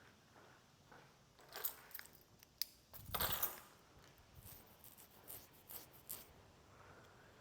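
A set of keys jingling, with small metallic clinks, in scattered bursts. The loudest rattle comes a little past three seconds in.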